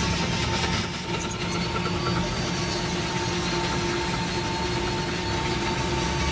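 Pillar drill running with a steady hum and a thin whine while its bit drills into the rim of a large steel ring gear, with a few light clicks about a second in.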